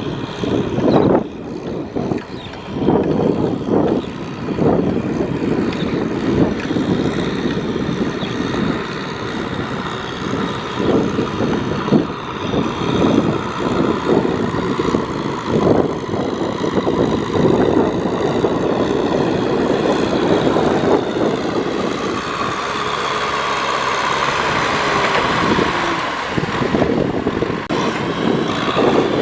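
Tractor engine running hard while ploughing through deep mud, its loudness surging unevenly, with a steadier stretch of engine hum about three quarters of the way through.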